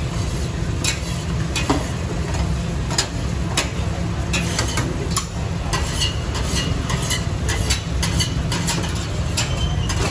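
Metal tongs clinking and scraping against a steel strainer bowl and pans in irregular sharp clicks, over a steady low rumble and the hiss of frying.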